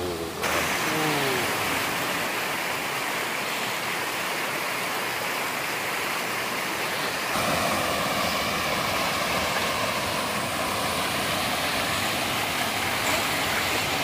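Steady rush of flowing stream water.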